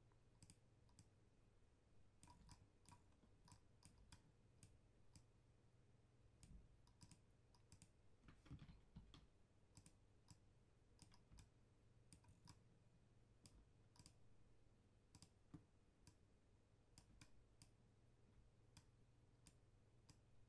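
Faint, irregular computer mouse clicks, a few a second, over near-silent room tone as vertices are selected and dragged.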